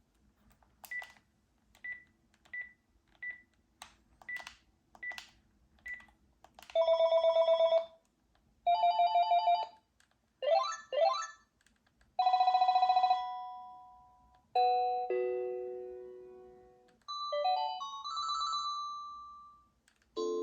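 Panasonic KX-TGEA20 cordless phone handset: about eight short key beeps, each with a click, roughly every two-thirds of a second, then its electronic ringtones playing one after another: two bursts of a buzzy trilling ring, a pair of quick rising sweeps, another trill fading out, and short falling and then rising runs of notes.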